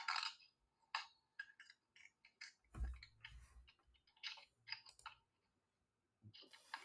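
Faint, irregular clicking and tapping, with a soft low thump about three seconds in.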